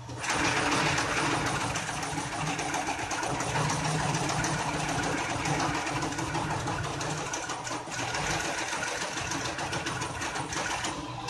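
SMT pick-and-place machine running a placement cycle, its head shuttling rapidly over the circuit board. It makes a fast, continuous mechanical clatter that kicks in abruptly at the start.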